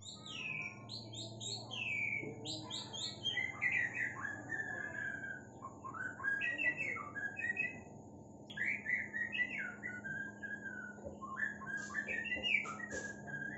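Male white-rumped shama singing: a run of varied, quick whistled phrases that slide and fall, with short pauses a third and two thirds of the way through. The bird is fresh from its moult and singing again, but not yet in its full open-beaked song.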